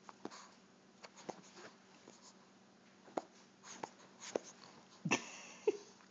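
Boston terrier scuffling and mouthing at a hand in play: scattered rustles and sharp clicks, with a louder noisy burst about five seconds in followed by a brief low vocal grunt.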